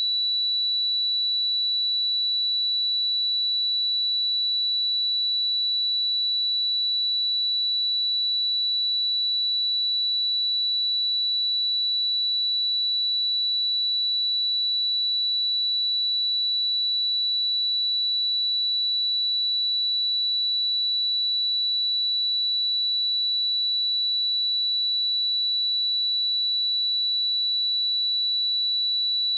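A pure 3945 Hz sine-wave test tone, steady and unbroken at one pitch, played as a speaker test signal.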